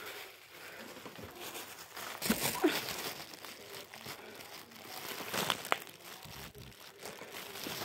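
Thin plastic crinkling as a clear plastic container is handled close to the microphone, with louder crackles about two and a half seconds in and again about five and a half seconds in.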